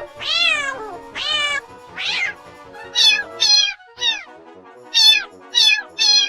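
Kittens meowing over and over, about nine high calls that fall in pitch: two longer meows first, then a run of shorter, quicker ones.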